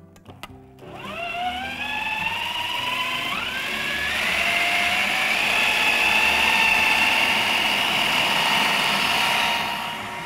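Electric food processor starting up about a second in, its motor whine climbing in pitch as it spins up, then running steadily as it chops minced meat with soaked soy beans and spices into a burger mix. It eases off near the end.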